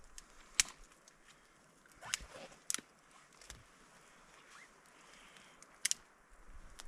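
Small wood campfire crackling: a handful of sharp, irregular pops over a faint steady hiss.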